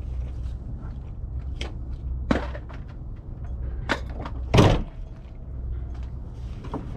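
The hood of a junked Jeep Grand Cherokee WJ is pulled down and slammed shut with one loud metal slam, after a few smaller clanks and knocks.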